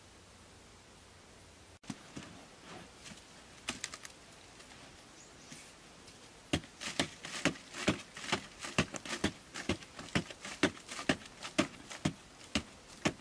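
Hand digging tool with a wooden handle striking and scraping into dry, sandy earth. After a faint hiss, scattered knocks come first; from about six seconds in, strikes come steadily, about two to three a second.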